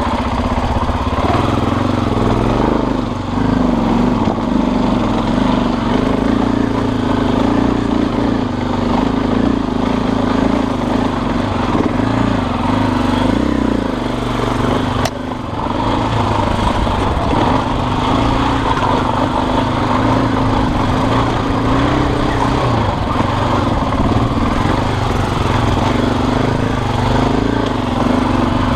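Dirt bike engine running steadily under way on a trail, with a sharp click and a brief drop in level about halfway through.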